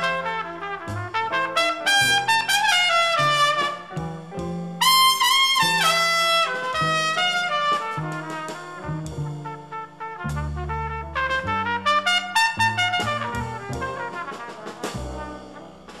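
Small jazz group playing: a trumpet leads with quick runs of notes over a walking double bass.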